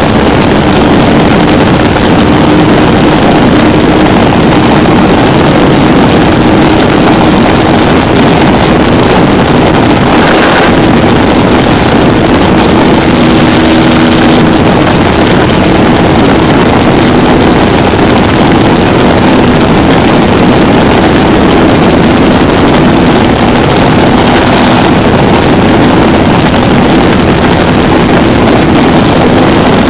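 KTM Duke 200's single-cylinder engine holding a steady high speed, with heavy wind buffeting on the microphone over a constant engine hum.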